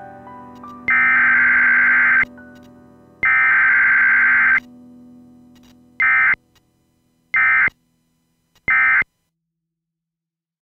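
Emergency Alert System digital data bursts: two long, harsh, buzzing bursts of the header code, then three short bursts about a second and a half apart, the end-of-message code. Soft background music underneath fades out before the last burst.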